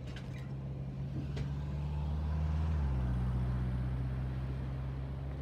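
Diesel locomotives hauling an intermodal freight train, a deep, steady engine drone that steps slightly down in pitch about halfway through. A few short, high chirps sound in the first second or so.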